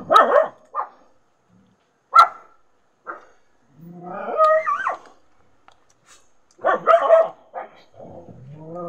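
A dog barking in a string of short, separate barks, with a longer wavering yelp about halfway through.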